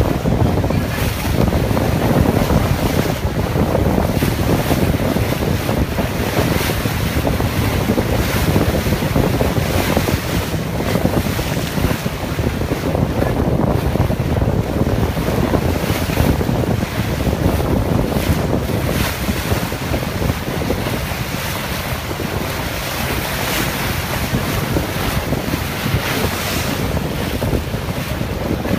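Motorboat under way across choppy water: a steady rush of wake and spray along the hull, with wind buffeting the microphone in gusts.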